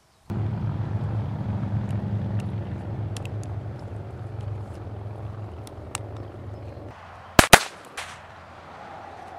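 Two sharp shots in quick succession from a blank pistol fired into the air about seven seconds in, as the retrieve is marked for the Labrador, with a fainter crack just after. Before them, a steady low rumble that slowly fades.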